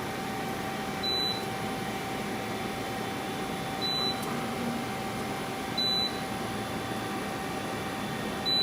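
Okuma LS30N NC lathe running with a steady hum and a constant tone, while four short high beeps sound at uneven intervals of about two to three seconds.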